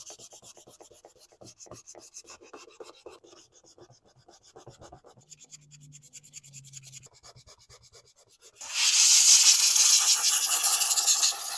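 Hand sanding of a plastic steering-wheel trim piece with sandpaper: quick, quiet rasping strokes, several a second. A little past two-thirds of the way in, a loud, steady hiss takes over.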